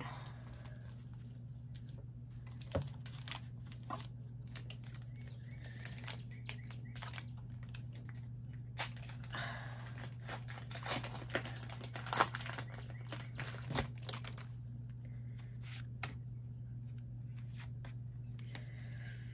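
Foil wrapper of a Pokémon trading card booster pack being torn open and crinkled by hand: a run of intermittent crinkles and small snaps, busiest in the middle.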